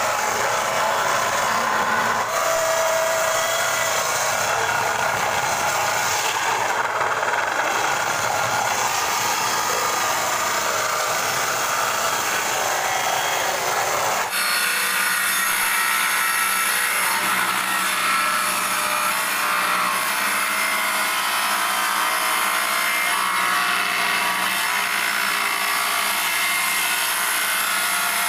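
A power saw rips a long timber slab lengthwise with a steady sawing noise. About halfway through the sound changes suddenly, losing its low rumble and taking on a brighter, whining edge.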